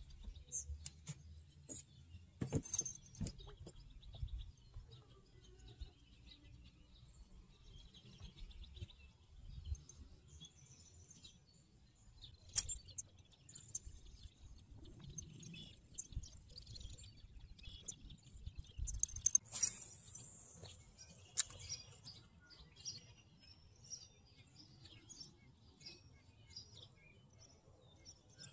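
Birds chirping and calling off and on, over a low steady rumble. A few sharp clicks and knocks stand out, the loudest about three seconds in and again near twenty seconds in.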